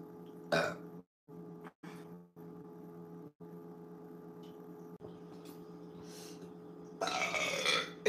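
A woman lets out one drawn-out burp of about a second near the end, with a brief sharp sound about half a second in. A steady low hum runs underneath.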